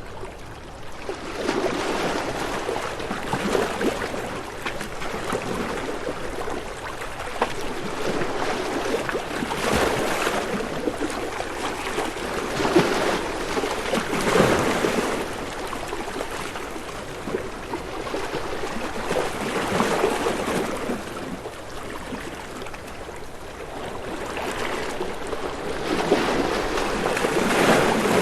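Waves washing in and out, a steady watery rush that swells and eases every few seconds.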